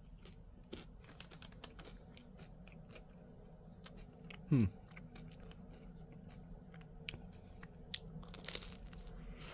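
Quiet, close-up chewing of a Nestlé Drumstick ice cream cone, with small crunches from its chocolate-and-peanut coating and crispy waffle cone. About halfway through comes a brief falling 'hmm' from the eater, the loudest sound here.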